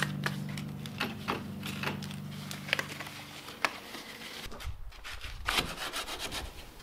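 Faint handling noises: scattered light clicks and the rustle of a latex glove being pulled on, then quick rubbing of hand-held sandpaper on the dried polyester filler patch of a boat hull near the end. A steady low hum runs underneath and fades out about halfway.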